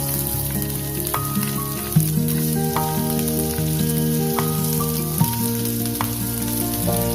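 Food frying in a hot pan: a steady sizzle, with acoustic guitar music playing over it.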